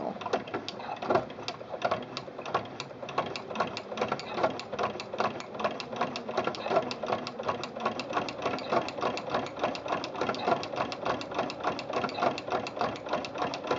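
Singer Quantum Stylist 9960 sewing machine stitching slowly with a ruffler attachment, giving a quick, even ticking. The ruffler is set to push in a pleat every sixth stitch.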